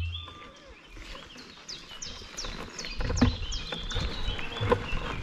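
Eurasian blackcap and common chiffchaff singing loudly, the chiffchaff's repeated falling notes coming about two to three a second from about two seconds in. A low rustling noise joins about three seconds in.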